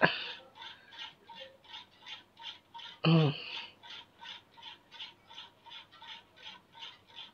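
Soft, regular ticking, about four ticks a second, with a sharp click at the very start. About three seconds in there is a brief voiced sound from a person.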